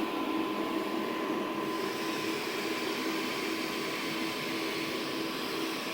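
AMI 415 orbital welding power source and 79-3500 orbital weld head running during a weld test: a steady hum and hiss with two held tones, the hiss growing brighter about two seconds in.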